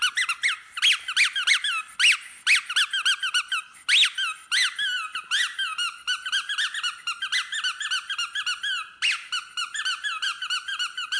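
Squeaky dog toy being squeezed over and over: a rapid, unbroken run of high squeaks that bend up and down in pitch, about three or four a second.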